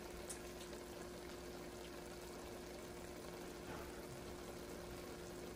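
Pot of egusi soup simmering faintly on the heat, over a low steady hum.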